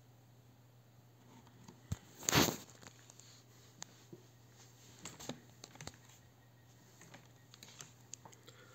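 Faint scattered clicks of a laptop's keys and touchpad, with one brief louder rustle about two and a half seconds in, over a low steady hum.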